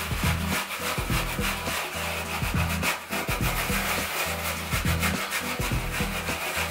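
Detangling brush scratching through short, wet, tightly curled hair in quick repeated strokes, over background music with a bass line.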